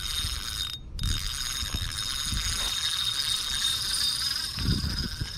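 Fishing reel being cranked to reel in line, a steady mechanical whir that drops out briefly about a second in.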